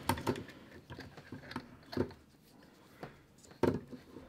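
Scattered small clicks, taps and rustles of a stick battery and its wires being handled and pushed into place against an airsoft rifle's plastic body, with sharper knocks near the start, about 2 s in and about 3.5 s in.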